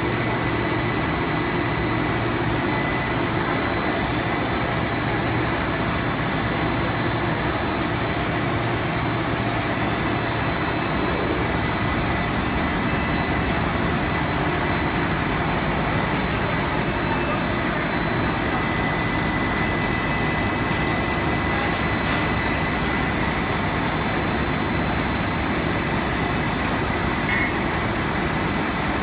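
Cast film extrusion line running: a steady, even machine noise with a faint high whine held throughout.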